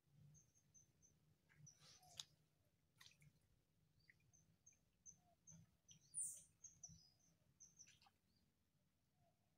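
Near silence, with a small bird chirping faintly in runs of short, high notes and a brighter call about six seconds in. A few soft clicks come around two and three seconds in.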